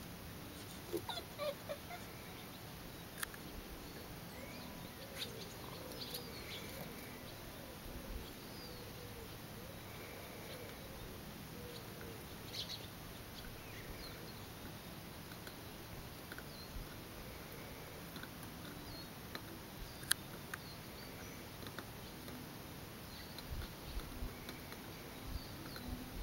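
Quiet outdoor background with scattered faint, short high chirps and a few soft clicks.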